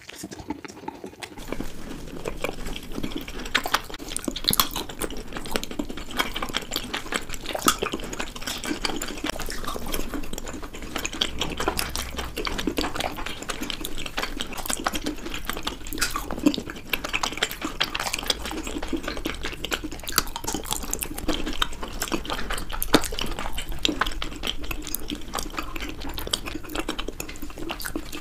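Close-miked eating of chocolate cake and chocolate ice cream desserts, sped up to double speed: chewing and mouth sounds in a dense run of quick clicks.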